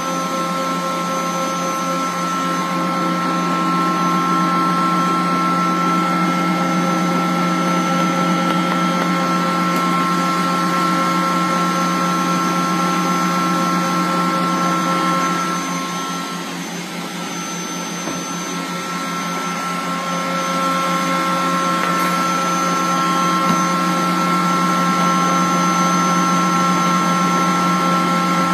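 Electric stand mixer with a centre-column bowl running loud and steady, whipping egg whites into meringue. Its hum dips briefly about sixteen seconds in, then comes back up to full level.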